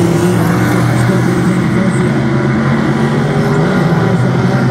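Several dirt-track street stock race cars' engines running together in a steady, loud drone as the pack circles the oval, the pitch holding level rather than revving up.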